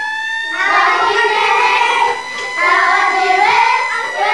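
A group of children singing together, with a thin, steady high tone held under the voices.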